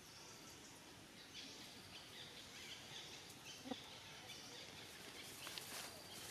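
Faint outdoor ambience: birds chirping and insects in the background, with one brief pitched call about three and a half seconds in.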